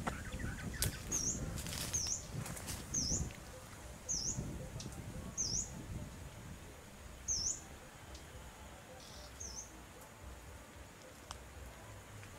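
A small bird calls a short, high note that dips and then rises, seven times, a second or two apart. Under it are low rustling and rumble that die down after about three seconds.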